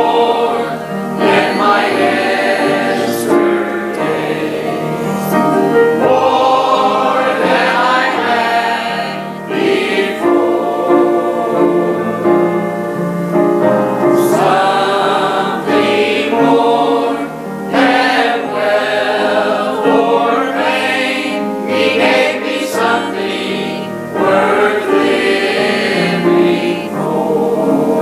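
Church choir of mixed men's and women's voices singing a gospel song in parts, with piano accompaniment, phrase after phrase with short breaths between.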